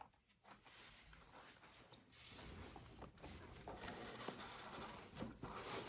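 Faint rustling and light scraping of the model locomotive's packaging being handled by hand, with a few soft clicks.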